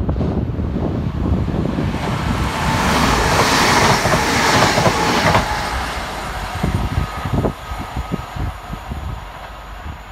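Northern Class 323 electric multiple unit passing through the station at speed: a rushing noise of wheels and running gear that swells to its loudest about four seconds in, with a faint steady whine, then a run of clicks of wheels over the rail joints as it draws away and fades.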